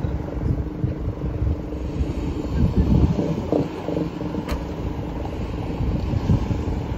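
Low rumble of road traffic passing, swelling about halfway through, mixed with gusty wind on the microphone.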